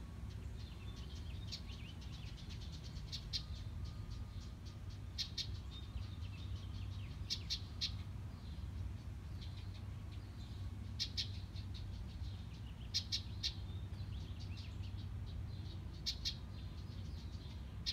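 House wrens calling: short runs of quick high chips every second or two, over a steady low rumble.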